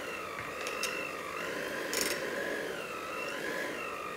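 Handheld electric mixer running as its beaters whip potatoes into a rustic mash in a pot, the motor's whine rising and falling in pitch. A few sharp clicks come in, the loudest about two seconds in.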